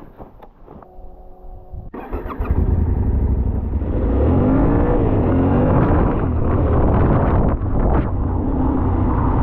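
Yamaha Ténéré 700's parallel-twin engine under way as the motorcycle rides off. It is faint for the first two seconds, then loud and steady, with the revs rising and dropping again and again as it accelerates.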